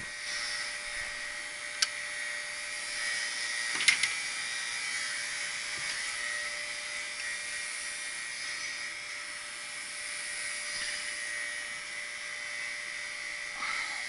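Steady machine whine holding one pitch, with a hiss over it. Two sharp clicks stand out, about two and four seconds in.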